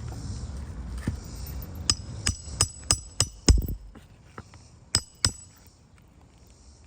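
Hammer driving a roofing nail into an asphalt shingle: sharp metallic strikes, about seven in quick succession with the heaviest just past the middle, then two more a second later.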